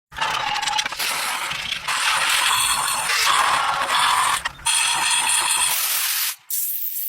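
Mechanical workshop noise of a tool working on motorcycle parts: a steady, hissing scrape in several short stretches, with abrupt cuts between them.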